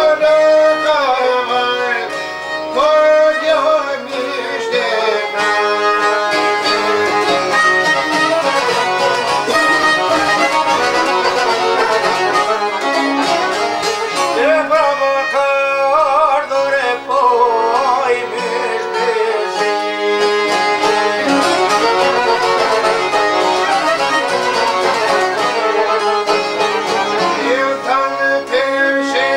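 Folk music with a violin leading a wavering, ornamented melody over plucked string accompaniment.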